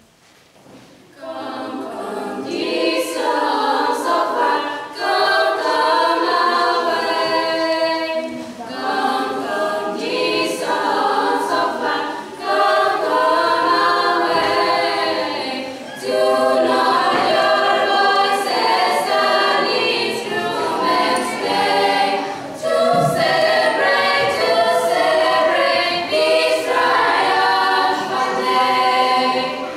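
Girls' choir singing a cappella in several voices, coming in about a second in and going on in phrases with brief breaks between them.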